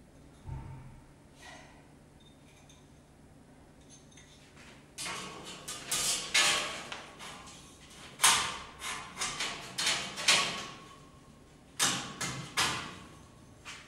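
A low thump about half a second in. From about five seconds in comes a busy run of sliding scrapes and knocks, several a second, as furniture pieces or drawers are pushed and handled during assembly.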